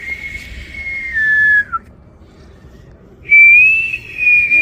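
Someone whistling two long, clear notes. The first holds steady, steps down slightly partway through and falls away at its end. The second starts about three seconds in, rises a little and then holds.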